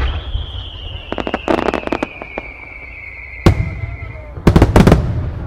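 Aerial fireworks going off in a starmine barrage: a loud bang at the start, a long whistle falling slowly in pitch over about four seconds, a flurry of crackling pops, a single sharp bang, then a rapid cluster of bangs near the end.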